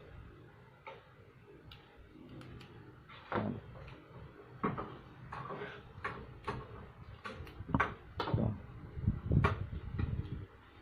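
Flat-blade screwdriver prying the lock ring off a motorcycle cam chain tensioner: irregular metal clicks and knocks starting about three seconds in, with a few duller thumps near the end.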